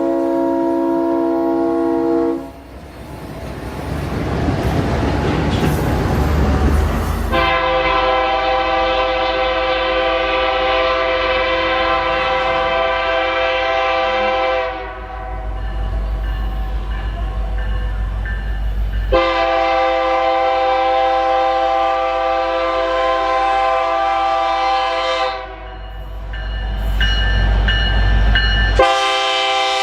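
Train air horn sounding long blasts, a chord of several tones held steady. One blast ends about two seconds in, and new ones start about seven, nineteen and twenty-nine seconds in. Between the blasts there is the low rumble of a moving train.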